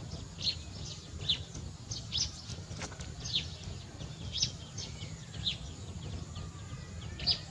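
Birds chirping: short, high, falling chirps repeated irregularly every half second or so, over a low steady rumble.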